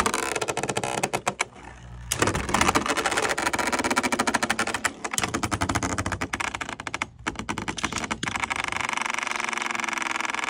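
Beyblade Burst spinning top running across a plastic Beyblade Burst stadium floor, giving a fast, continuous rattle of clicks, which turns steadier and more even in the last couple of seconds.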